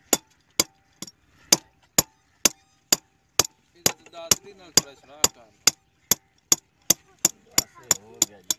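Small hand hammer striking metal in a steady run of sharp blows, about two a second, with a short metallic ring after some of them. The blows come faster near the end.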